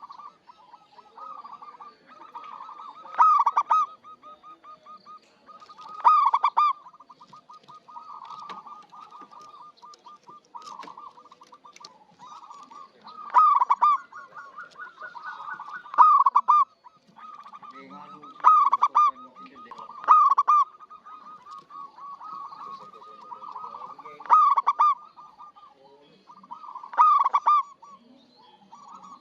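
Local zebra dove (perkutut) singing its cooing song: a loud coo phrase every few seconds, with quieter quick stuttering coo notes in between.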